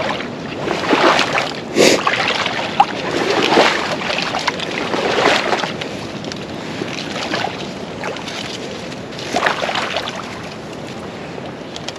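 Wading in chest waders through shallow pond water and dead cattails: water sloshing and stalks brushing and crackling, swelling with each stride every second or two.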